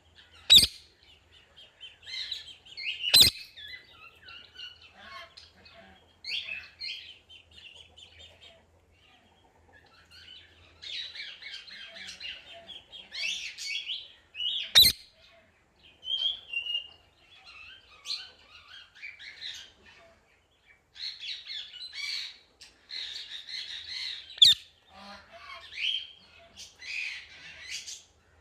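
Ringneck parakeet chattering and chirping in rapid high-pitched runs with short pauses, broken four times by a very short, sharp, loud sound.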